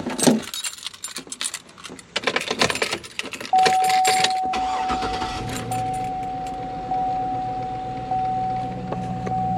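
Keys jangling and clicking, with small plastic knocks under the dash of a 2004 Cadillac Escalade ESV. From about three and a half seconds in, the truck's steady high warning chime sounds and pulses about once a second; a low hum joins it a second later.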